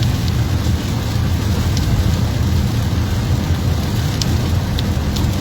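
Steady rain with a low rumble underneath and scattered sharp ticks of drops striking a surface.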